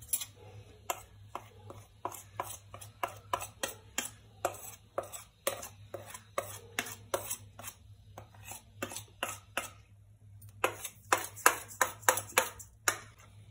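Metal spoon tapping and scraping against a plate as powdered spices are pushed off it into a steel bowl of chicken: irregular clinks a few per second, coming faster near the end.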